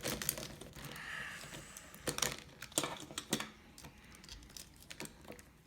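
Small plastic toys being handled and set down, a scattering of sharp clicks and clacks.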